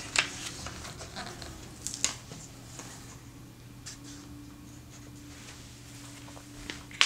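A hardcover picture book being closed and handled on a table: paper rustles and a few soft knocks, most of them in the first two seconds, over a faint steady hum.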